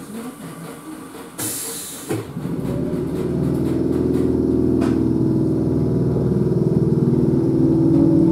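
Electric train pulling away from a station: a short hiss of air about a second and a half in, then the hum and rumble of its drive and wheels building up and holding steady.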